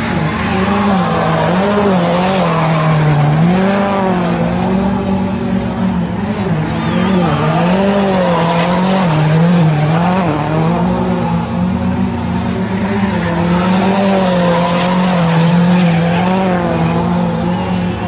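Rally car spinning donuts, its engine held at high revs with the pitch wavering up and down again and again as the throttle is worked, over the continuous screech of the rear tyres sliding on the tarmac.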